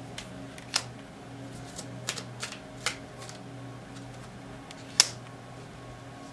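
Tarot cards being drawn and laid down on a wooden table: a handful of sharp card snaps and clicks, the loudest about five seconds in, over a low steady hum.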